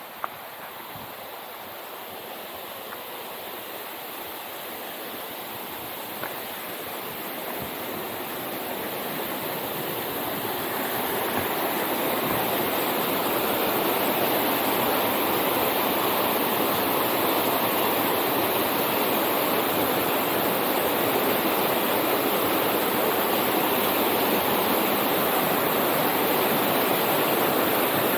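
Rushing water, a steady roar that grows louder over the first dozen seconds and then holds steady.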